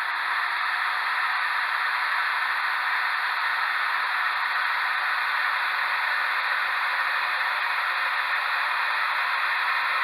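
Power drill running steadily, drilling rivet holes in the truck body, heard as an even, unbroken hiss.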